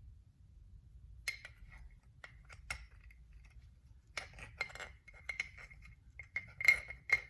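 Small metal parts of an Andis Master hair clipper clinking and clicking as the spring and lever parts are handled and fitted back in. It is a string of light metallic clicks with a short ring, starting about a second in, irregular and growing busier, with the loudest clicks near the end.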